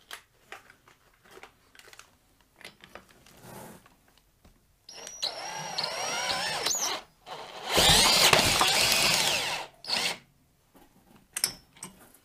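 DeWalt cordless drill slowly cranking a Kohler K321 engine backwards by its flywheel nut, which defeats the automatic compression release so the engine builds compression. After some handling clicks the drill whines for about two seconds, then runs louder and rougher for about two seconds, with a short burst just after.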